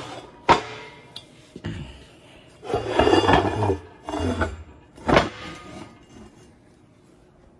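Heavy welded steel weldment being shifted and set on a steel stand: metal clanks and scrapes. There is a sharp clank about half a second in, a longer stretch of scraping and knocking around three seconds in, and another sharp clank about five seconds in.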